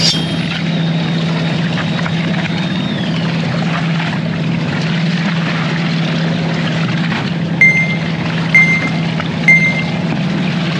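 A fishing boat's engine running steadily, a constant low drone under a wash of noise. Near the end, three short electronic beeps about a second apart.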